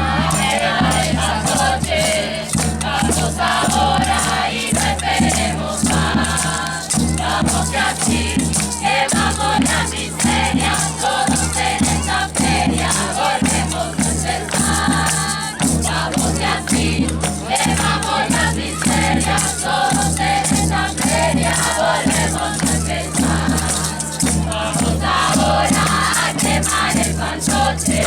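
Loud music with a steady bass beat, shakers and singing voices, played over a sound system.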